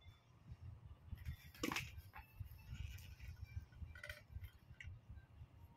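Faint handling noise of a ring light and its tripod stand being assembled, with one sharp click about a second and a half in and a few lighter clicks near the end as parts are fitted together.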